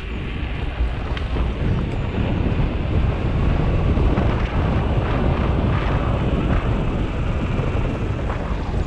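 Wind buffeting the microphone of an action camera on a moving bicycle, a steady low rumbling rush that grows louder a few seconds in.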